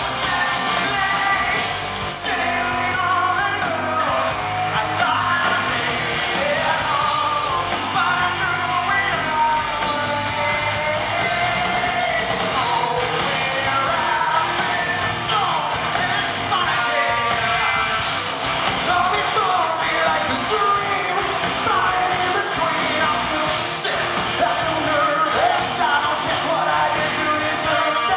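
Live rock band playing, with a male lead vocalist singing over drums and electric guitar.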